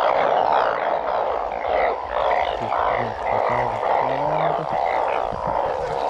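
A dense chorus of frogs calling after heavy rain, a continuous pulsing din with many short higher chirps over it. A few low, gliding croaks stand out about halfway through.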